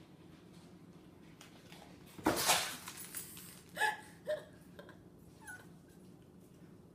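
A sudden loud scuffle about two seconds in as a cat drops onto a small dog at its food bowl, then the dog gives two short startled yelps.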